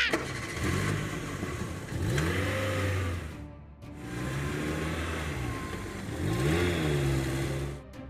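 A motor-vehicle engine sound effect, running and revving up and back down several times, with a short break about three and a half seconds in.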